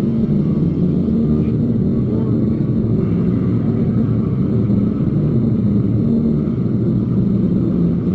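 Muffled, bass-heavy audience recording of a hardcore punk band playing live, the distorted guitar, bass and drums blurred into a dense low rumble with a voice buried in it.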